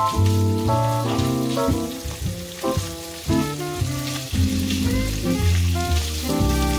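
Minced beef and garlic sizzling in oil in a frying pan as it is broken up with a spatula. Steady background music with changing notes sounds over it and is the louder of the two.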